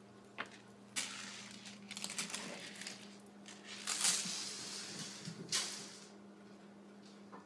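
Rustling and handling noise with a few light clicks and clatters as a plastic bead necklace is grabbed and tossed across a wooden floor, loudest about four seconds in at the throw. A low steady hum runs underneath.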